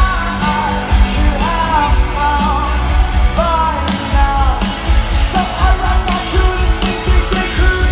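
Rock band playing live: a sung melody over drums, bass and guitars, with a steady beat.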